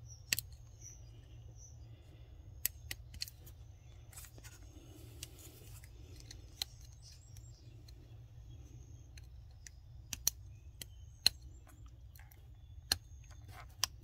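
A thin metal terminal-release tool clicking and scraping inside a brittle, aged plastic wiring connector: about a dozen sharp, irregular clicks as the old plastic crunches and breaks. A faint steady low hum runs underneath.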